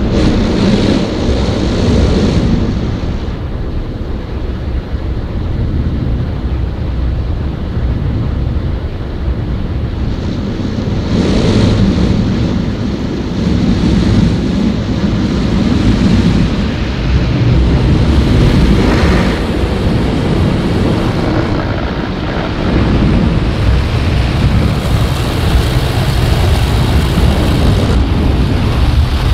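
Kleindienst Euro Combi car wash's rotating brushes scrubbing over the car, heard from inside the cabin: a loud, steady rumble and swish of wet brush strips and water against the body and glass, with a few louder hissing surges.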